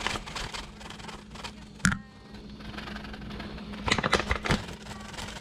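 Handheld mesh flour sifter being shaken and tapped over a plate. There is one sharper clink just before the middle, then a run of quick light taps near the end, over a steady low hum.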